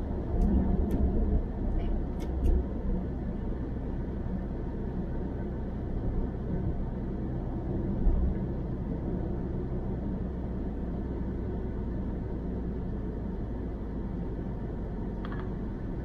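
Steady low rumble of tyre and engine noise inside a car moving at motorway speed, with a few faint clicks in the first couple of seconds.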